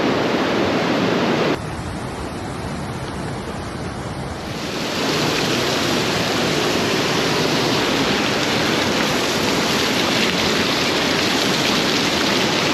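Fast-flowing mountain river swollen after heavy rain, a steady rush of water. About a second and a half in it drops abruptly to a quieter rush, then comes back up to full level around four and a half seconds.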